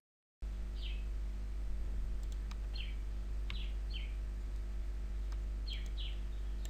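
A small bird chirping in short, quick, falling chirps, about six of them, over a steady low hum, with a few faint clicks.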